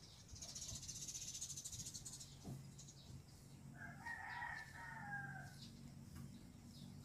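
A faint rooster crowing once, about four seconds in, for a second and a half. Before it, a high, rapidly pulsing buzz lasts about two seconds.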